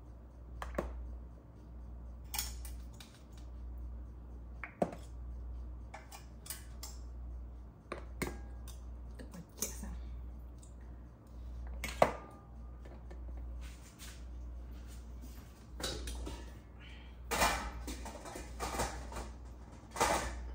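Kitchen utensils and dishes clinking and knocking now and then, with a busier clatter near the end, over a steady low hum.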